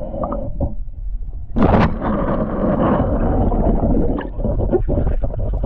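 Water gurgling and splashing around a boat over a steady low rumble, with a sudden louder rush of water about a second and a half in.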